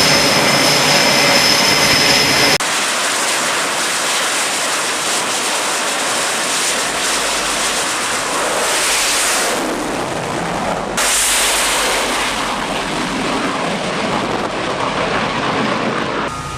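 Jet aircraft engines running loud on a carrier flight deck, a steady hiss of exhaust noise. The sound changes abruptly twice, about two and a half and eleven seconds in.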